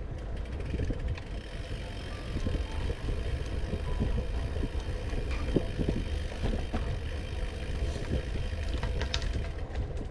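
Gusty wind rumbling on the microphone, with scattered light clicks and ticks, a cluster of them about nine seconds in.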